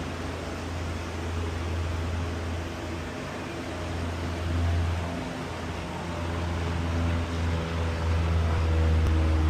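An engine running steadily, a low hum that grows louder and more tonal in the second half with a slight rise in pitch.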